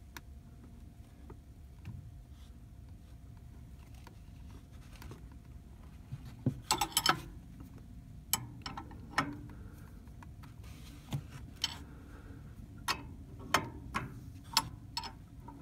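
Light metallic clicks and ticks as a pressure gauge is twisted by hand off a brass propane line fitting. They come irregularly, sparse at first and more frequent from about six seconds in.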